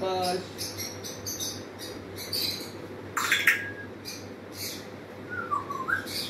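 African grey parrot making scattered soft clicks and short squeaky chirps, then a brief whistled figure that dips and rises near the end.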